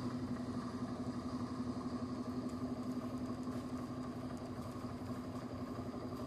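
LG Turbo Drum washing machine running empty, its drum turning with a steady motor hum.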